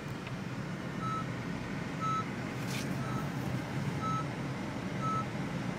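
Electronic warning beep: a short, clear tone repeating about once a second, over a low steady hum.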